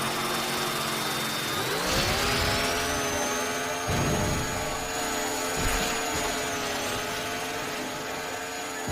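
Chainsaw motor revving up, rising in pitch about two seconds in and then holding a steady high running note, with a couple of low thuds.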